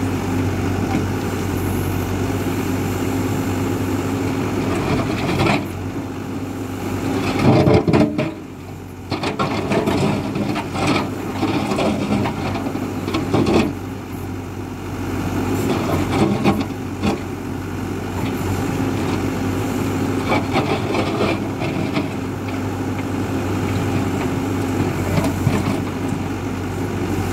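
Hidromek 102B backhoe loader's diesel engine running steadily, with the backhoe bucket scraping and knocking against hard ground several times, loudest about a third of the way in.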